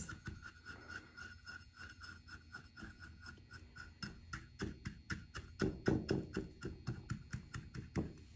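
Stainless steel measuring cup pressing graham cracker crumbs into a glass pie plate: a run of soft taps and scrapes, several a second, growing louder in the second half.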